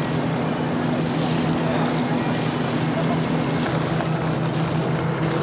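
A boat engine running at a steady low drone, under an even hiss of wind and water.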